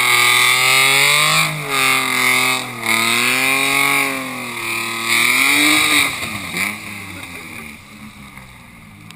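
BMW E36 328i Touring's straight-six engine revving hard through a burnout, the revs swinging up and down several times as the rear tyres spin, over a steady high hiss. After about six seconds the revs rise once more, then drop away and the sound fades.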